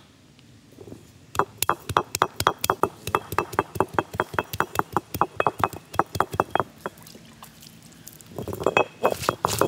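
Quick, even clinking strikes, about five a second, each with a light ring, going on for about five seconds and then stopping; a louder jumble of sound comes in near the end.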